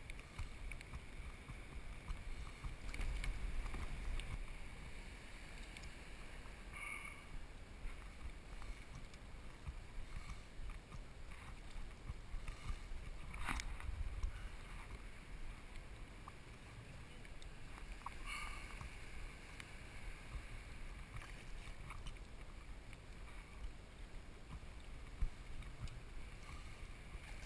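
Water lapping and slapping against the hull of a plastic sit-on-top kayak, with wind rumbling on the microphone. A single sharp knock comes about halfway through.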